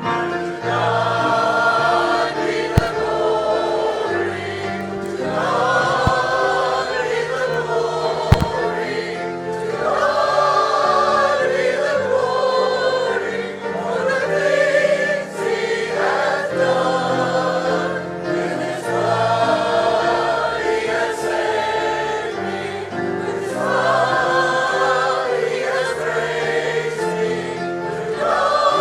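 Congregation singing the closing hymn together, many voices with instrumental accompaniment, in phrases of a few seconds each. Three sharp clicks stand out in the first nine seconds.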